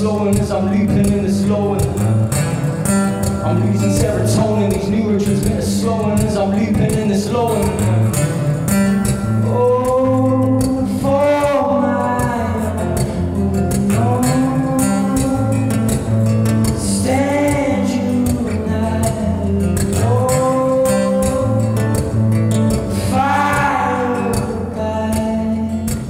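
Acoustic guitar strummed live with a man singing along; the voice comes forward about ten seconds in with long held notes.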